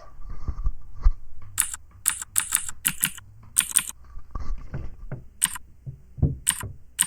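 Computer keyboard typing with the Mechvibes app set to its blue-switch sound, each key press playing a sharp clicky Cherry MX Blue–style click. There is a quick run of presses about one to four seconds in, then a few single presses near the end.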